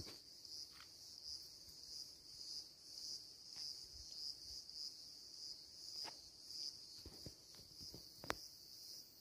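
Faint outdoor insect chorus, a steady high-pitched trill that pulses gently throughout, with a few soft clicks scattered over it, the sharpest one near the end.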